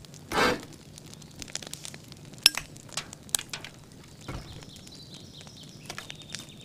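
Fire of dry branches crackling, with scattered sharp pops and snaps; the sharpest snap comes about two and a half seconds in. There is a brief rushing burst about half a second in, and a faint thin high tone near the end.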